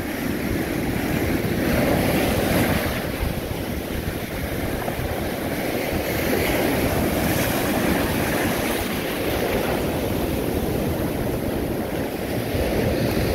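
Ocean surf breaking and washing up the shore, swelling and easing as the waves come in, with wind on the microphone.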